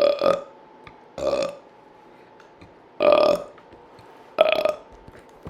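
A person burping repeatedly: four short, loud burps, each a fraction of a second long, spaced one to two seconds apart.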